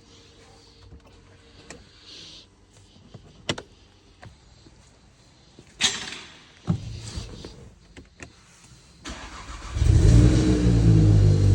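A few scattered clicks and knocks, then about nine seconds in the 2019 Golf GTI's 2.0-litre turbocharged four-cylinder petrol engine starts. It settles into a loud, steady run.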